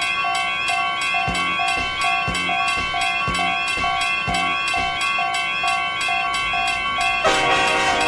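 Several cartoon railroad-crossing alarms ringing together: steady electronic tones layered with a beep that pulses about twice a second, and low knocks in time with it for a few seconds. Near the end a louder, fuller blast of many tones cuts in briefly.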